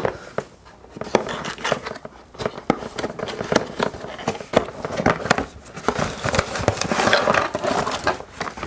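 Cardboard box being opened and handled: a run of small clicks, taps and scrapes as the lid is worked open, then a denser stretch of rubbing and rustling near the end as cables are pulled out of it.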